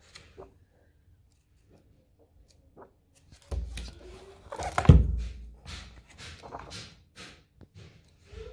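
A hardcover book being handled and its pages turned: a run of short papery rustles starting about three and a half seconds in, with a dull thunk about five seconds in.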